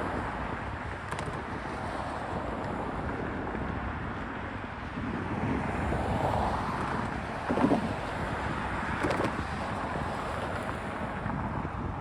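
Intermodal double-stack train cars rolling past, with a steady rumble of steel wheels on rail and wind on the microphone. There is a louder clank about two thirds of the way through, and another a second and a half later.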